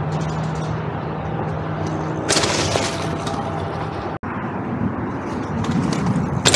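Gotyger Sport electric mountain bike rattling and clattering as it rolls down a rough trail with no motor assist, its battery removed. A steady rushing noise runs underneath, with louder bursts of rattling about two seconds in and again near the end.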